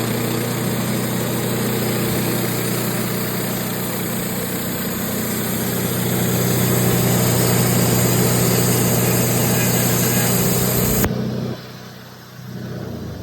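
Wood-Mizer LT15 Wide portable sawmill running, its motor humming steadily and getting louder about halfway through. About eleven and a half seconds in, the sound drops away suddenly.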